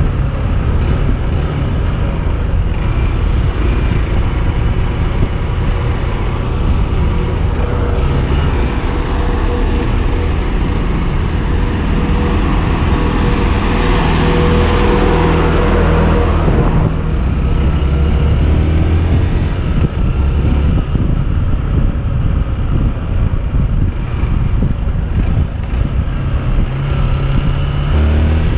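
Small motorcycle engine running while riding slowly in city traffic, its note stepping up and down with the throttle, under steady rushing road noise that swells for a few seconds around the middle.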